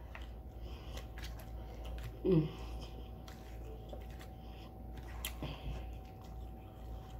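Light clicks and scrapes of a plastic fork against a styrofoam takeout container as noodles are picked up, with a short vocal sound from the eater about two seconds in.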